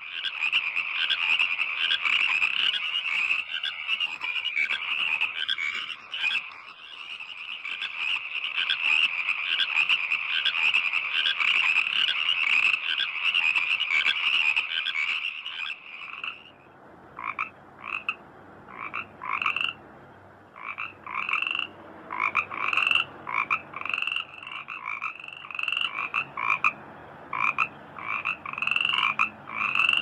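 Frogs calling: a dense, continuous chorus of pulsing croaks that, about halfway through, gives way to separate short croaks repeated every half second or so.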